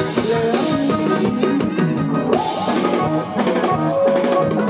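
Live band music with a full drum kit playing a steady beat over keyboards and other pitched instruments.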